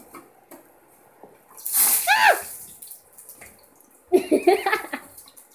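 A person's sudden vocal outburst about two seconds in: a sharp burst of breath noise and a short high cry falling in pitch. A second short outburst of voice follows about four seconds in.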